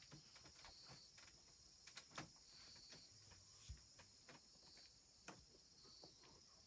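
Faint insect chorus, a steady high-pitched chirring, with a scattering of light clicks and taps.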